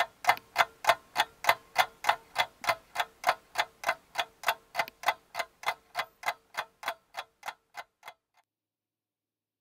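Ticking-clock sound effect: a steady run of sharp ticks, about three a second, over a faint steady hum. The ticks grow fainter toward the end and stop about eight seconds in.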